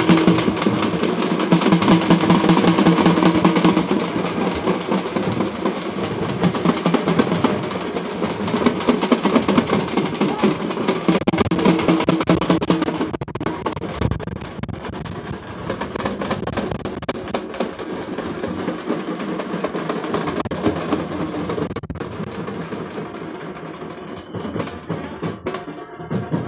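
Procession drums beaten fast and densely with music and crowd voices, louder for the first half and somewhat quieter after the middle.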